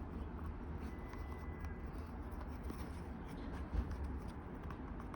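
Faint rustling and light handling noises from a plant cutting being dipped and moved about, over a low steady background rumble.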